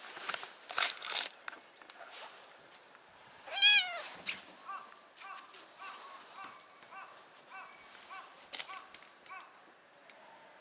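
A ginger tabby cat gives one loud meow that rises and falls in pitch, about three and a half seconds in, after some rustling of movement. A string of faint short chirps follows.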